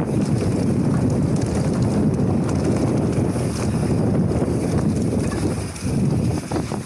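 Wind buffeting a helmet- or chest-mounted action camera's microphone during a fast mountain-bike descent, mixed with the rumble of knobbly tyres rolling over a dirt singletrack. The rumble eases briefly near the end.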